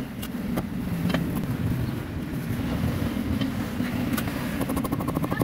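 Steady low rumble of street traffic, with a few sharp taps of a knife on a wooden chopping block as roast pork belly is sliced. Near the end a fast run of rapid ticks starts.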